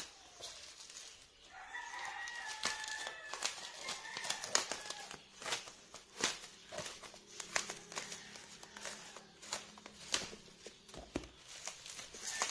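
Bubble wrap crinkling and snapping as it is pulled off a cardboard box and cut with scissors, in many quick small clicks. From about two to five seconds in, a drawn-out, wavering high tone sounds behind the handling noise.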